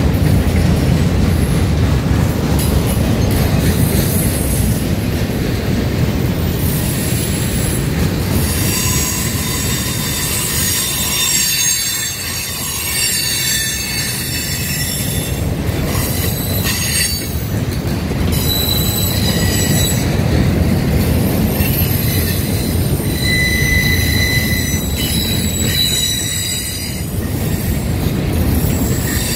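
Boxcars of a CSX freight train rolling past with a steady rumble of wheels on rail. From about a quarter of the way in, high wheel squeals come and go.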